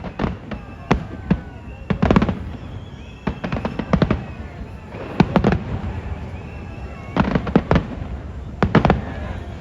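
Fireworks display: aerial shells bursting in repeated loud bangs, often in quick clusters of two or three, with crackling between them.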